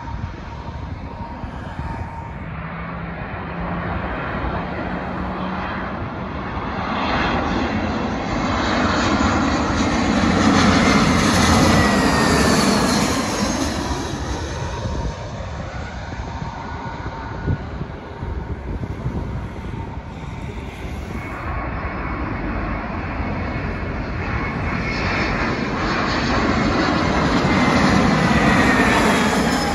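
Two Airbus A320-family jet airliners passing low overhead on final approach, one after the other. The jet engine noise swells to a peak about twelve seconds in with a falling whine as the first goes over. It builds again near the end with the same falling whine as the second passes.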